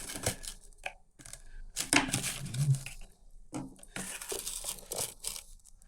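Packaging being torn and crumpled in irregular bursts while new electric-skateboard wheels are unpacked.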